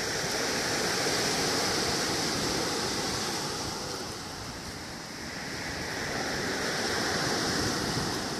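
Sea surf rushing in a continuous wash, swelling, easing off around the middle and swelling again.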